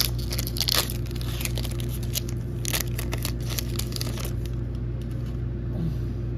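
A Pokémon Fusion Strike foil booster pack being torn open and crinkled, then the cards slid out and handled. It makes an irregular run of crackles and rustles, busiest in the first few seconds.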